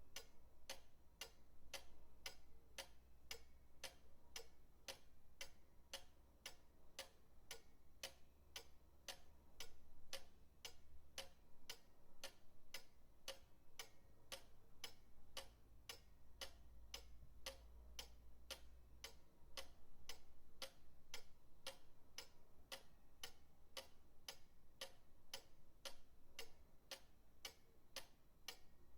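Pendulum clock ticking steadily, about two even ticks a second, over a faint low rumble.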